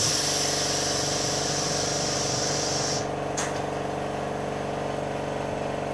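Pneumatic screen-printing machine for bags running a print stroke: compressed air hisses loudly as the squeegee carriage travels across the screen, then cuts off about three seconds in, followed by a short click. A steady machine hum runs underneath.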